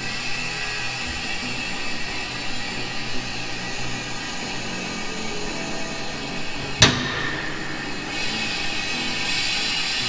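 Steel spring-loaded safety-lock pawl on an air-raised ATV lift table riding over the lock teeth as the table rises, with one sharp metallic clack about seven seconds in as it catches a tooth. A steady hiss runs underneath and grows brighter near the end.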